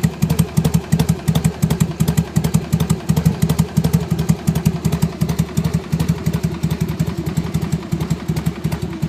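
Harley-Davidson Sportster's V-twin engine running steadily at idle through its stock exhaust pipes, a loud, rhythmic, slightly uneven pulsing beat with no revving.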